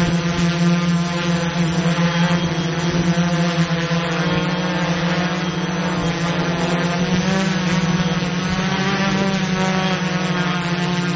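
Drone's propellers and motors whining steadily, a pitched buzz with many overtones that shifts slightly in pitch about halfway through.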